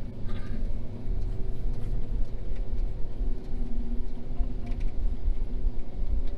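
John Deere T670i combine harvester's engine running steadily while the machine travels: a continuous low drone with a steady hum over it.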